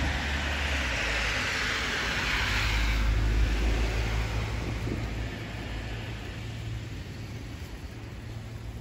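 A road vehicle passing: a hiss with a low rumble that swells over the first few seconds, then fades away from about five seconds in.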